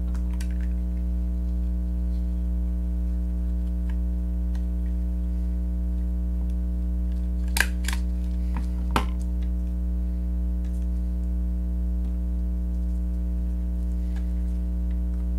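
Two sharp snaps of a hand stapler driving staples through ribbon and foam, about a second and a half apart, over a steady electrical mains hum.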